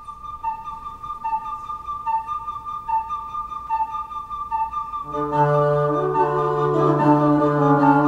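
Flute playing an Appalachian folk tune as a quick figure alternating between two notes. About five seconds in, other instruments join with sustained low notes and chords, and the music gets louder.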